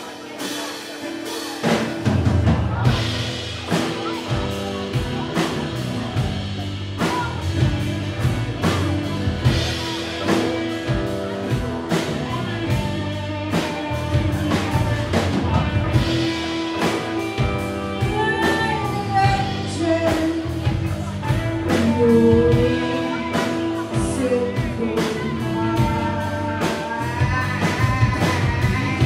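Live band playing a rock song on acoustic guitar, electric guitar, bass and drum kit. The full band comes in about two seconds in after a quieter opening, and a woman's singing voice joins in over the last third.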